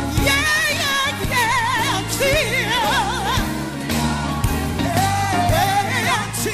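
Live gospel worship music: a singer drawing out wordless, ornamented notes with wide vibrato over band accompaniment.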